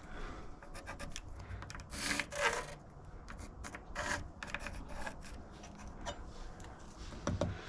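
Chisel scraping and scoring into the wooden door frame in a series of short strokes, a few louder ones about two, four and five and a half seconds in, chasing out the recess for a deadbolt strike plate.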